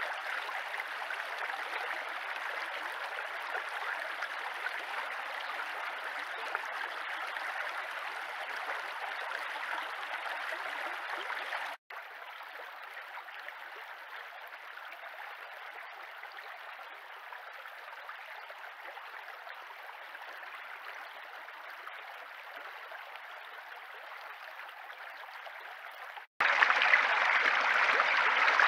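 Shallow stream running over stones and gravel, a steady rushing water noise. It drops to a softer level about twelve seconds in and gets louder again near the end, with a brief gap at each change.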